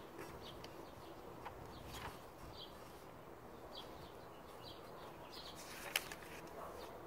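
Faint, scattered chirps of small birds over quiet outdoor background noise. A single sharp click about six seconds in, from the hardcover picture book being handled.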